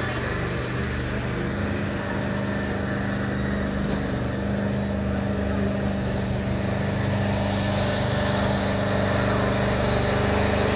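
An engine running steadily with an even hum, growing a little louder toward the end.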